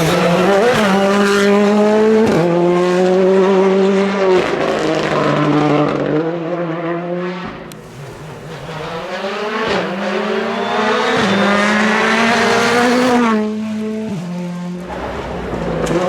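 Ford Fiesta R5 rally car's turbocharged four-cylinder engine driven hard, its revs climbing and dropping sharply at each gear change. The sound fades about seven seconds in, climbs again through more shifts, and eases off near the end.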